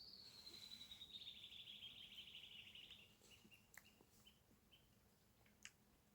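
Faint bird song: a high, fast trill that slides slowly down in pitch for about three seconds, followed by a few short chirps. Two faint clicks come near the end.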